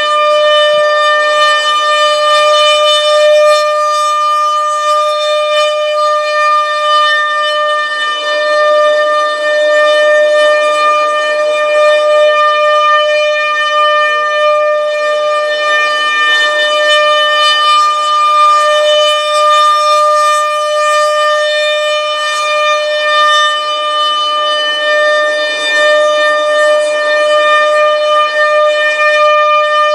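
ASC RM-130 rotating mechanical outdoor warning siren sounding its steady alert: one continuous 600 Hz tone with strong overtones, swelling and dipping slightly as the head slowly rotates. The unit seems very healthy. It is heard from inside a car.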